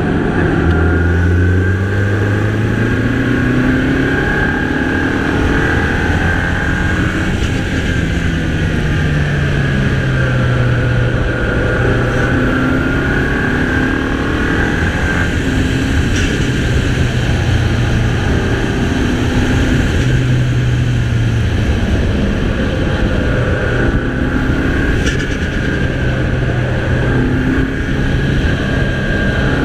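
Mini Cooper's 2.0-litre turbocharged four-cylinder engine under way, its note rising and falling again and again as it pulls and eases off, with a turbo whine wavering above it. A couple of sharp ticks come partway through.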